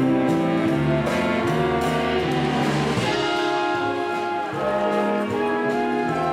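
Background music: an upbeat jazzy band with brass over a low bass line that steps from note to note.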